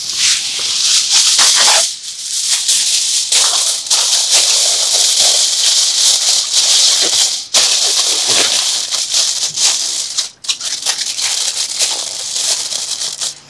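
Aluminium foil crinkling and crackling as it is folded and crimped around a roasting tray, a dense rustle with a few short pauses.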